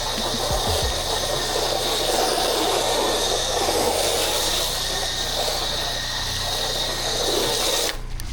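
Pressure washer wand spraying in a steady hiss over a low engine hum; the spray cuts off suddenly near the end.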